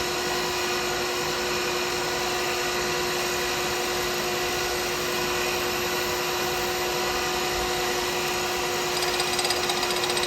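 Lathe running steadily with a constant tone while a turning tool takes light finishing cuts on the spinning pen blank; the cutting gets a little rougher and louder near the end.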